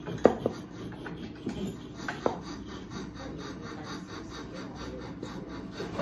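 Wooden carving blank being handled and worked at a bench vise: a few sharp wooden knocks near the start and again about two seconds in, with rubbing and scraping of wood between.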